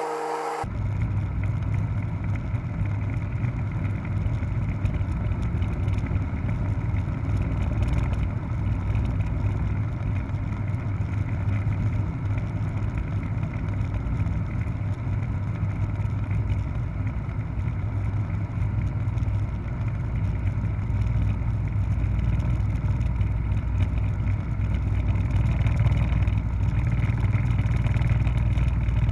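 Helicopter engine and rotor noise: a steady low drone that starts abruptly about half a second in and grows slightly louder near the end.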